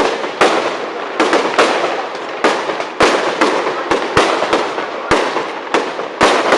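Fireworks display: aerial shells bursting in quick succession, a dozen or so sharp bangs about two a second, each trailing off before the next.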